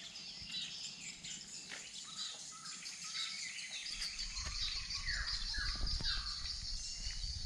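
Several wild birds calling in tropical forest over a steady high buzz of insects. In the second half one bird gives a call that falls in pitch, four times about half a second apart. A low rumble rises from about four seconds in.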